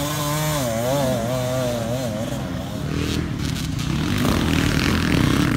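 Enduro dirt bike engine revving hard on a climb, its pitch wavering up and down with the throttle. About three seconds in, the sound changes to another dirt bike engine running rougher and louder.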